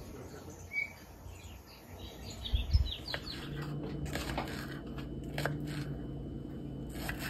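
Birds chirping faintly for the first few seconds, then a low thump. After that comes a knife slicing through a peeled mango and tapping a wooden cutting board, several cuts at irregular intervals of about a second, over a low steady hum.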